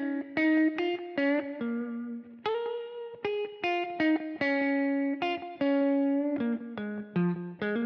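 Electric guitar, unaccompanied, playing a slow single-note phrase in the minor pentatonic scale. The notes are separate and unhurried, about two or three a second, with no chords.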